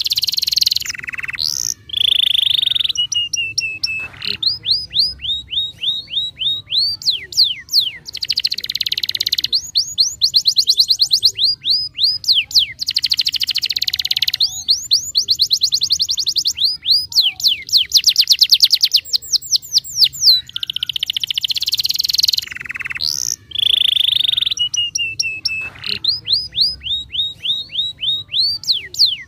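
Domestic canary in full, non-stop song: high-pitched phrases that switch between runs of quick falling chirps and very rapid trills, with only brief pauses.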